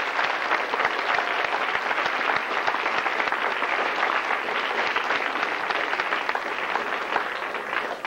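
Audience applauding: many hands clapping together in a steady wash, tapering off near the end.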